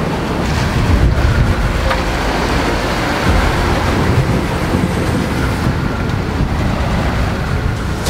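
Strong wind buffeting the microphone over the rush and splash of waves along a sailing yacht's hull in rough seas. The noise is loud and gusty throughout.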